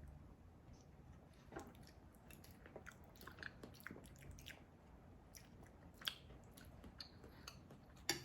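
Quiet close-up chewing and crunching of crackers eaten with MRE Italian sausage in marinara sauce. There are scattered small crackles and a few sharp clicks, the loudest two about six and eight seconds in.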